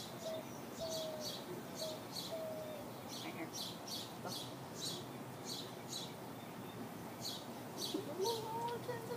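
Birds chirping, a short high note repeating about twice a second, over faint low cooing notes. A low, bending tone comes in near the end.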